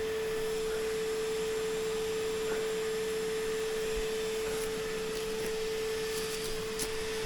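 A steady hum held at one unchanging mid pitch, with a few faint clicks near the end.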